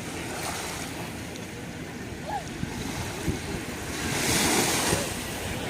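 Sea waves washing onto a beach, with one wave breaking and hissing louder about four seconds in.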